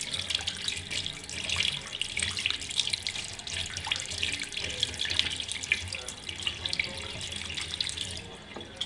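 A tap runs water with splashing as a glue brush is rinsed under it, to clean the glue from its tip. The water stops about eight seconds in.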